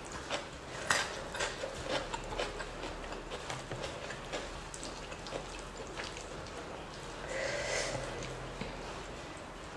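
Close-miked mukbang eating sounds: a scatter of small wet clicks and smacks from chewing fish skin in curry and from fingers mixing and squishing rice and sauce on a wooden board. A brief, louder rushing noise comes about seven seconds in.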